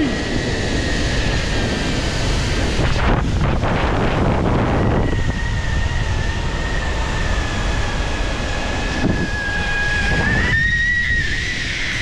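Wind rushing over the microphone during a zipline ride, with the trolley's pulleys running along the steel cable as a steady high whine. The whine holds for several seconds and rises in pitch near the end.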